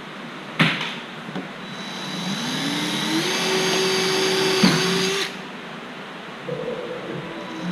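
A power drill spinning up with a rising whine, running steadily for about three seconds, then stopping; a sharp click comes early on, and another just before it stops.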